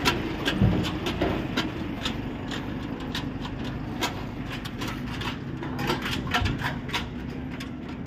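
Diesel goods truck engine running with a low rumble as the truck pulls away, slowly fading, with scattered sharp clicks and knocks over it.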